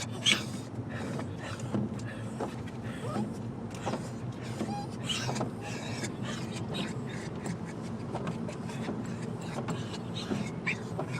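Excited dogs whining and crying in high, broken bursts inside a moving car, the loudest cry just after the start, over the car's steady road noise. The dogs are worked up at arriving somewhere they love.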